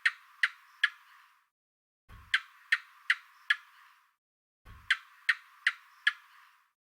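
A lizard calling with sharp clicks: three bursts of four quick clicks each, the same burst repeated each time.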